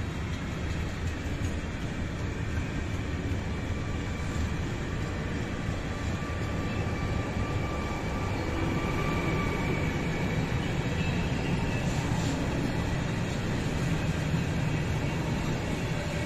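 Freight train of covered sliding-wall wagons rolling past close by: a steady rumble of wheels on rail. Faint high ringing tones from the wheels come and go through the middle.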